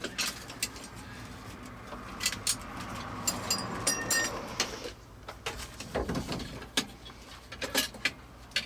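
Hand wrench clicking and knocking against the steering column as the ignition switch's mounting nuts are loosened and the switch is worked free: a run of irregular metallic clicks, with a brief thin squeak near the middle.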